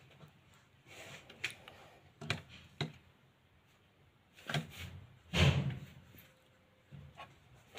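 Small clicks and knocks of a screwdriver working the brass terminal screws of a plastic ceiling rose, with a louder thump past the middle.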